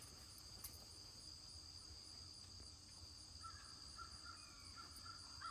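Near silence with a faint, steady, high-pitched insect chorus. In the second half, a bird calls faintly with short repeated notes.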